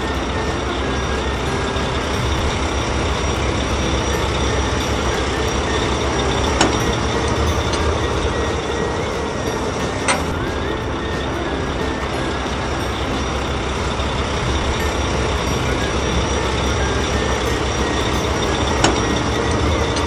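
Heavy construction-machine diesel engine running steadily under load, as for a backhoe loader digging, with three short clicks spread through.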